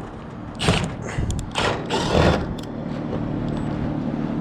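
Short scraping and rustling noises with a few light clicks, from handling the metal ridge cap and roofing during screw-fastening, over a steady low hum.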